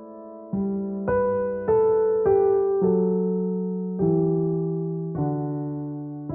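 Soft, slow piano music: chords struck about once a second, each fading away before the next.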